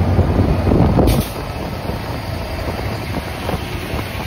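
GO Transit diesel locomotive running with a steady low rumble, heard close beside its trucks and fuel tank. A sharp clack comes about a second in, after which the rumble is somewhat quieter.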